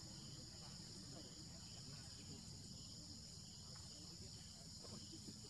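Faint, steady high-pitched drone of a forest insect chorus, with a low rumble underneath and a few faint short chirps.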